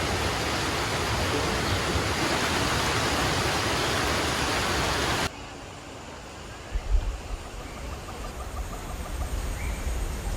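Steady, loud rushing of heavy rain or running water, cutting off suddenly about halfway. A quieter outdoor ambience follows, with faint, evenly repeated high chirps and a few low bumps.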